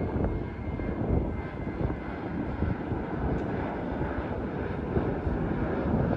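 Jet airliner flying overhead, its engines giving a steady rumble, with a faint high whine over it in the first couple of seconds.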